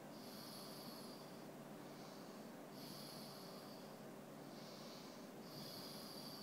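A dog snoring softly as it sleeps: three louder snores about two and a half to three seconds apart, each a high hissy breath, with a fainter breath between each pair.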